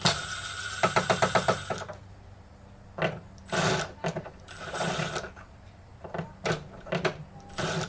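Screwdriver backing tiny screws out of a TV's plastic back cover: a rapid, even run of about ten clicks a second lasting about a second. Shorter rattling bursts and scattered single clicks follow.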